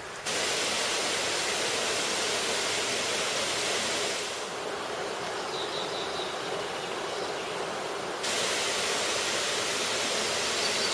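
Waterfall: a steady rush of falling water. About four seconds in it suddenly loses its hiss and sounds duller, then returns to full about eight seconds in.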